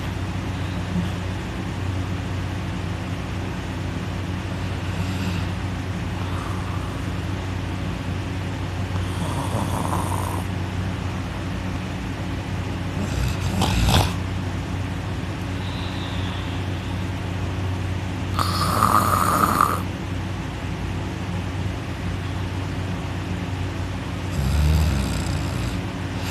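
A sleeping man snoring loudly, a few separate snores several seconds apart, the loudest about two-thirds of the way through. A steady low hum runs underneath.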